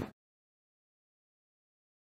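Digital silence, after a loud car sound cuts off abruptly at the very start.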